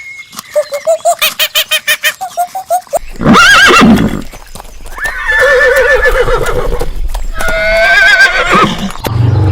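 Horses whinnying: a series of calls, a loud one about three seconds in, then two long calls with a quavering pitch.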